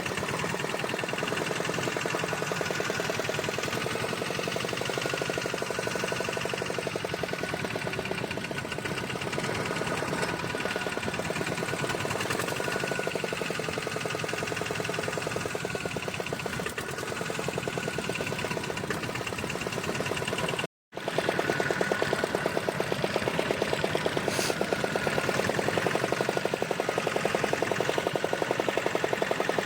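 Fishing boat's engine running steadily with a fast, even knocking beat. The sound cuts out for a split second about two-thirds of the way through, then returns slightly louder.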